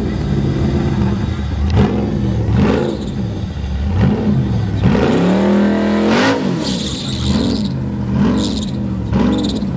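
Commodore's LS3 V8 being revved hard in repeated blips during a burnout, its pitch rising and falling about once a second. About five seconds in comes one longer, higher rev.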